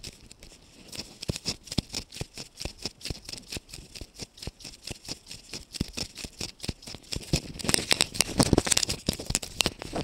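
Footsteps on a hard, polished floor mixed with rapid clicking and rattling from someone walking, growing louder and busier near the end.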